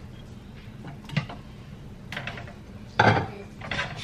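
Several separate knocks and clinks of cookware, the loudest about three seconds in: a glass lid lifted off a saucepan and a wooden spoon knocking against the pot.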